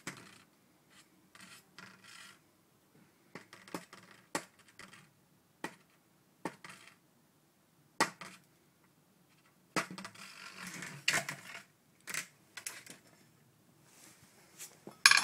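Damp-rotted wooden skirting board being picked apart: irregular cracks, scrapes and crunches of crumbling wood, with small fragments clicking onto a hard floor. A longer stretch of crunching scraping comes about ten seconds in, and the loudest sharp crack right at the end.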